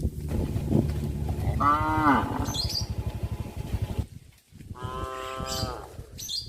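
Domestic cows mooing: two calls, the first with a pitch that rises and falls, the second held level. A low hum runs underneath and stops about four seconds in.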